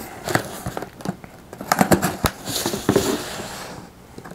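Utility knife cutting the packing tape on a cardboard box: scattered clicks and scrapes of the blade against tape and cardboard, with a longer hissing slit along the seam about two and a half seconds in.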